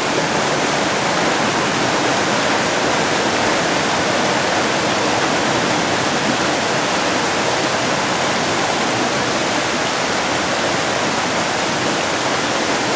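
River water rushing over boulders and through small waterfalls in a rocky channel: a steady, unbroken rush of white water.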